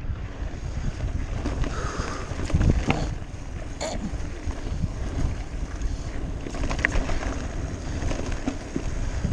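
Mountain bike descending a rocky dirt singletrack: wind rushing over the microphone with a steady low rumble, and scattered knocks and clatters as the tyres and frame rattle over stones.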